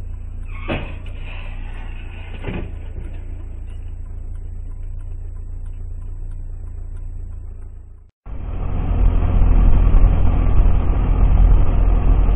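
Steady engine and road rumble of a moving vehicle, with two short knocks about a second and two and a half seconds in. The sound drops out briefly about eight seconds in and comes back as a louder, heavier rumble.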